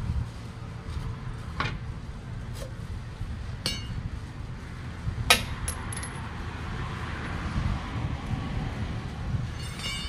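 Several sharp metallic clinks of tools against a truck's dual wheel, one ringing briefly and the loudest about five seconds in, over a steady low rumble.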